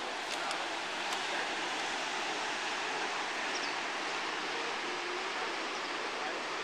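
Ocean surf washing over rocks below a cliff, a steady, even rushing hiss.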